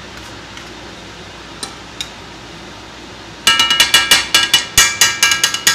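A metal utensil clinking and scraping rapidly against a cast iron skillet while stirring steak chunks: a quick run of about eighteen sharp, ringing strikes starting about three and a half seconds in.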